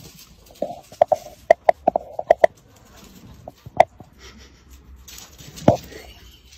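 A pet making short, sharp calls: a quick run of about eight in the first couple of seconds, then one near the middle and a louder one near the end.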